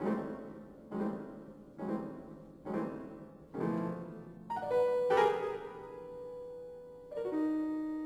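Grand piano played solo: five chords struck about once a second, then a quick run of notes settling on a held note, and a new phrase beginning near the end.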